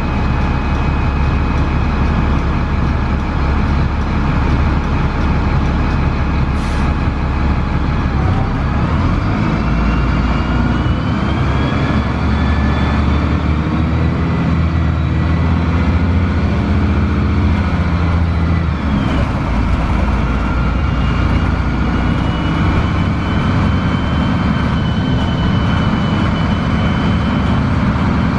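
Cummins ISC inline-six diesel and Voith 864.3E automatic transmission of a 2002 Gillig Advantage bus, heard from inside. The engine runs steadily, a short hiss comes about seven seconds in, then the engine and transmission whine rise in pitch as the bus accelerates, dropping once around eighteen seconds in at an upshift before rising again.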